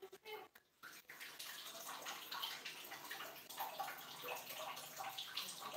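Water splashing and pouring in a small tiled bathroom as someone bathes, starting about a second in and going on unevenly with many small splashes.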